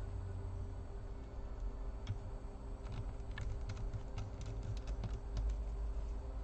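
Small screws being driven back into a laptop's bottom plate with a precision screwdriver: a run of light ticks and clicks from about two seconds in until about five and a half seconds, over a low handling rumble.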